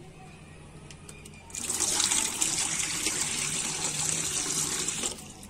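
Water poured in a steady stream into a stainless steel bowl of salt, making a salt-water solution. The pouring starts about a second and a half in and stops sharply near the end.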